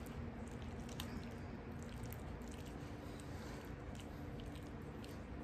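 A fork stirring buffalo mac and cheese in its container: faint squishing with scattered light clicks.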